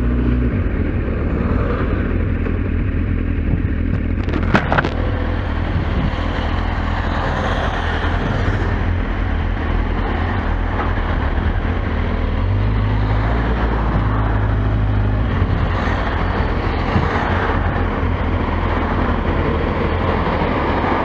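Kawasaki Z750S inline-four engine running steadily with wind rushing over the onboard microphone. The engine note shifts a little partway through. There is a brief sharp click about four and a half seconds in.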